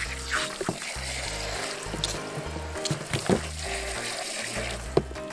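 Garden hose spray nozzle running a steady hiss of water onto a skinned chicken carcass, splashing on the meat as it is rinsed clean of stray feathers.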